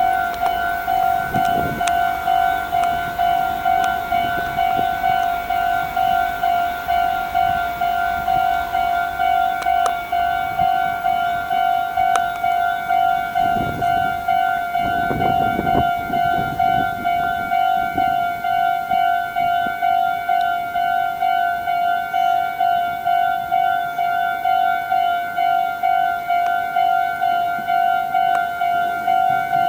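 Japanese railway level-crossing alarm ringing: an electronic two-tone bell repeating in an even, rapid pulse without let-up, the warning that a train is approaching and the barriers are down. A low rumble swells briefly in the middle.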